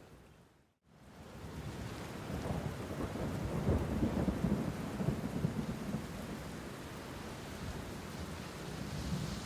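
Steady rain with a long, low roll of thunder that swells from about two seconds in and is loudest in the middle. The sound cuts out briefly just before one second in, then fades back up.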